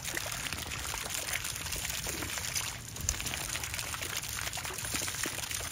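Thin arcing jets of water spraying and spattering steadily onto a concrete pool deck.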